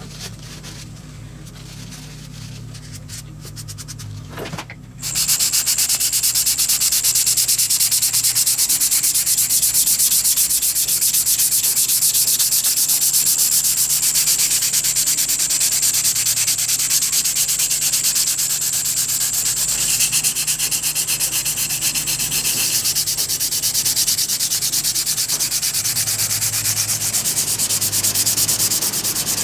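Sandpaper rubbing on a wooden stand base, hand sanding in quick back-and-forth strokes. It starts loud about five seconds in after a quieter spell, and goes on as a steady hiss.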